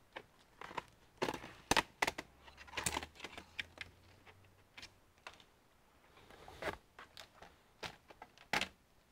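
Plastic case of a Lenovo IdeaPad S145 laptop being handled: irregular clicks and knocks as the lid is closed and the machine is turned over on a work mat. A cluster of sharp knocks comes about a second or two in, and another loud knock near the end.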